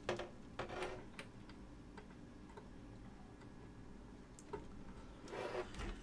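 Faint, scattered small clicks and knocks of a fan cable and its plastic connector being handled and plugged in inside an open computer case, about half a dozen over the first five seconds, then a short scraping rustle near the end.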